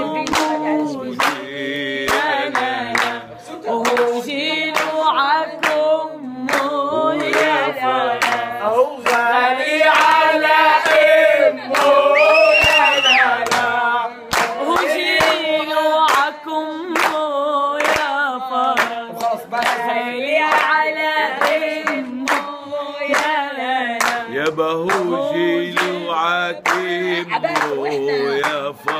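A man and a woman singing an Arabic folk song together unaccompanied, with hand clapping keeping a steady beat.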